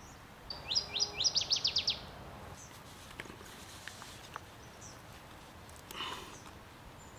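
A songbird's quick trill of about ten short descending notes about a second in. Faint ticks follow, then a scrape near the end as fence wire is rubbed on a stone to grind a hook point.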